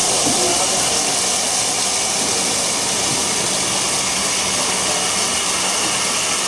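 A steady, loud hiss with a faint low hum beneath it, unchanging throughout.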